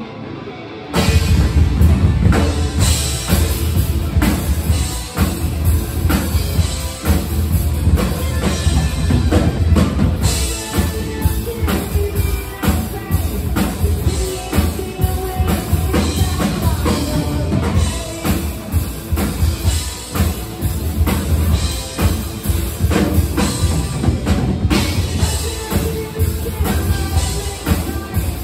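Live rock band playing: electric guitar, bass guitar and drum kit. The full band with drums comes in loudly about a second in and keeps a steady beat.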